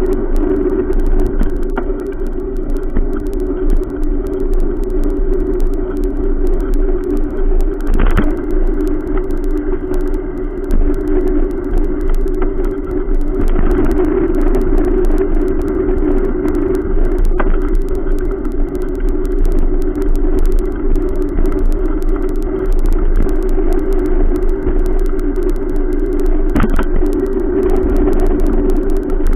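Steady muffled rumble of wind and tyre noise picked up by a camera riding on a moving bicycle, with car traffic going by on the road alongside. Three short sharp knocks as the bike goes over bumps.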